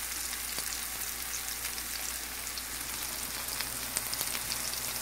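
Lamb meatballs frying in hot olive oil in a pan: a steady sizzling hiss with small crackles and pops.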